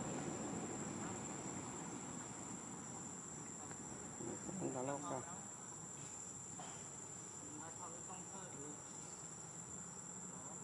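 Insects droning steadily at one high pitch. Two short wavering cries are heard over it, about halfway through and again a few seconds later.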